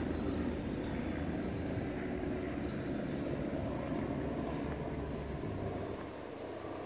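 A steady low droning rumble that fades slightly near the end.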